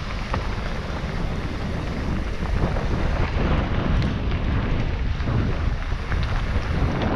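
Wind buffeting the microphone of a downhill mountain bike in motion, a loud low rumble, with scattered sharp clicks and knocks from the bike rattling over rough ground.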